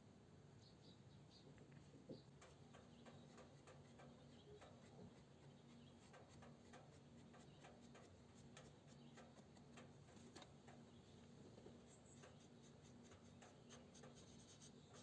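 Faint, irregular small clicks and light scratching from handling a mechanical clock movement, over a low steady hum.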